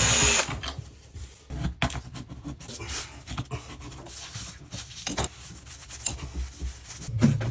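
Hand-tool work on a toilet flange: scattered short clicks, knocks and scraping. A loud rushing noise cuts off about half a second in, and a low hum comes in near the end.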